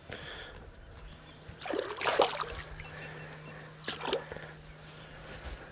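Water splashing and dribbling on a lake surface, with two short splashes about two and four seconds in. A steady low hum starts after the first splash.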